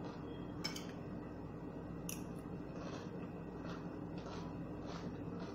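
A person eating with a spoon: a few sharp clicks of the spoon against a ceramic plate of rice, then soft chewing, over a faint steady hum.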